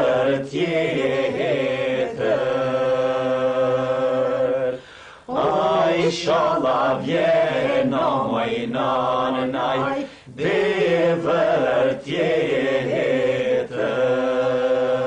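Albanian folk singing: a voice holding long, drawn-out phrases with wavering pitch, broken by short breaths about five and ten seconds in.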